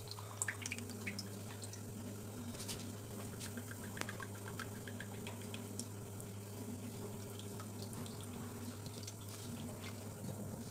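Sunflower oil poured in a thin stream from a plastic bottle into a nonstick frying pan, trickling and dripping faintly, over a steady low hum.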